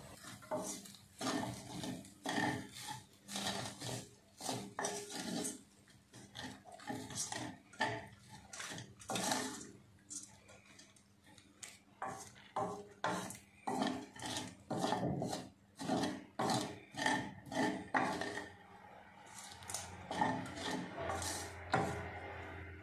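Wooden spoon scraping and knocking against a stainless steel pan while cooked rice is stirred and tossed, in irregular strokes about twice a second.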